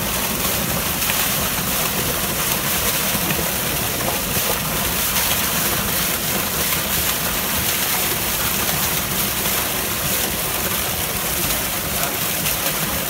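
Water and live trout gushing out of a fish-stocking truck's large discharge pipe and splashing into a lake: a steady rush of pouring, splashing water.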